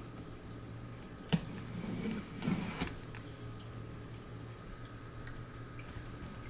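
Cardboard packaging being handled: a single sharp knock a little over a second in, then a brief rustle and scrape of box and packing material, over a steady low hum.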